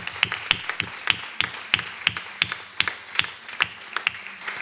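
An audience applauding. Sharp, separate claps close to the microphone stand out over the rest of the crowd's clapping.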